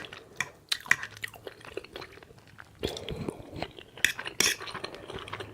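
A person chewing food open-mouthed, with irregular wet clicks and lip smacks.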